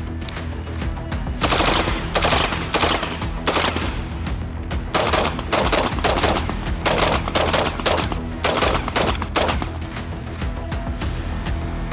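Sig MCX Rattler, a 5.5-inch-barrel 300 Blackout converted to full auto, firing a string of short automatic bursts, about eight or nine of them a second or so apart. Background music with a steady beat runs underneath.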